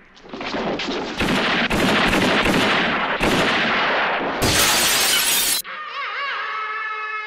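A burst of gunfire inside a building, several shots close together with echo, then a window's glass and frame smashing loudly as a man crashes out through it. The crash cuts off suddenly about two thirds of the way in, and the film's theme music with its wavering line begins.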